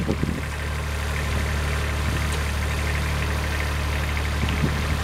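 Engine idling steadily: a low, even running note that holds without revving.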